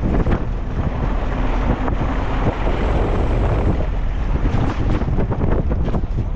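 Wind buffeting the microphone: a loud, uneven rush of noise, heaviest in the low end.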